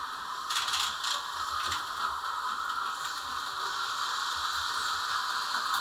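Tyco 440x2 HO slot car running around the plastic track, its small motor and gears whirring steadily, with a few rattling clicks between about half a second and two seconds in. It is running slowly, which the owner takes as a sign that the car needs work.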